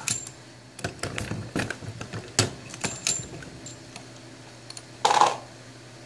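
Hornady Lock-N-Load AP progressive reloading press in use on .45 ACP: a run of quick metallic clicks and clinks as brass and bullets are handled at the shell plate, then a louder clatter about five seconds in as the press is cycled.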